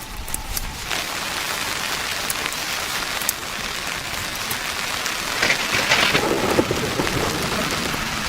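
Heavy rain pouring steadily, with scattered sharp ticks, swelling louder around six seconds in.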